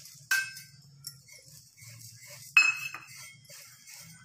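Steel utensils clink twice against a frying pan while vermicelli is stirred in, each strike ringing briefly; the second, about two and a half seconds in, is the louder. A steady low hum runs underneath.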